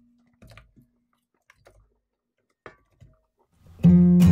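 A few faint, scattered light taps as cut celery and red pepper pieces drop into a bowl, then acoustic guitar music starts loudly near the end.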